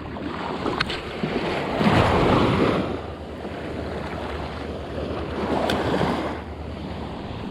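Small waves washing in on a sandy beach, two surges of wash about two and five seconds in, with wind buffeting the microphone.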